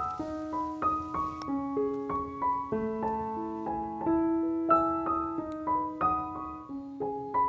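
Background piano music: a melody of single struck notes, each fading after it is played.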